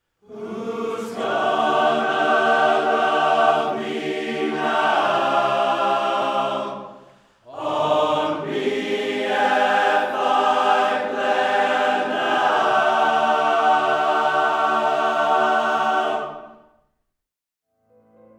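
Large men's choir singing in sustained chords, in two long phrases with a brief break about seven seconds in. The singing dies away about a second and a half before the end.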